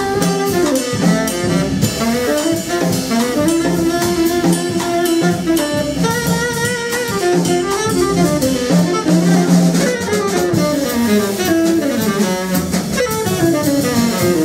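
Jazz trio playing: a tenor saxophone carries the melody over an upright double bass and a drum kit with cymbals.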